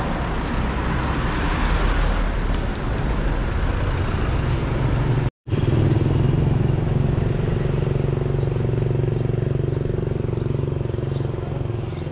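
Street noise with motor vehicles running. The sound cuts out for a moment about halfway, then a steady low engine drone carries on.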